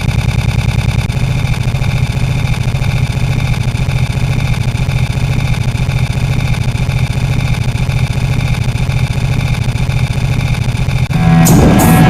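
An engine running steadily, with a fast even pulsing in the first second. About a second before the end it cuts abruptly to loud heavy-metal-style music with cymbal strikes.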